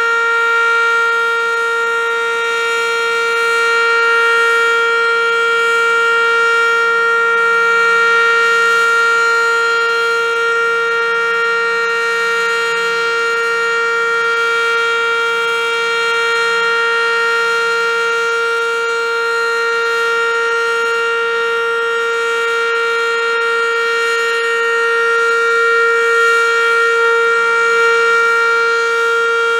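ASC OM-117 (ACA Banshee) outdoor warning siren sounding during its scheduled test, holding one steady, unwavering pitch rich in overtones.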